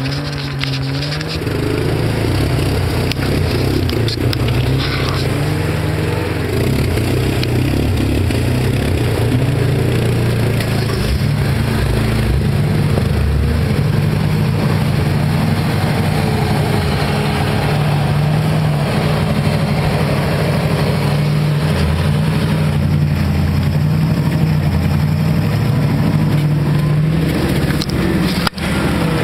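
Off-road 4x4's engine running under load as it drives through deep mud and water, its pitch wandering up and down with the throttle. A brief dropout near the end.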